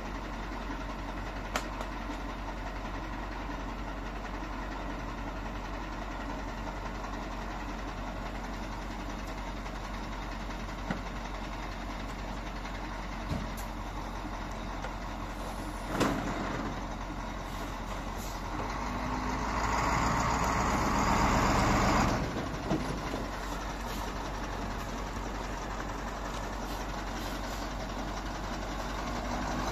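A heavy engine idling steadily, growing louder for about two seconds some twenty seconds in, with a couple of sharp knocks.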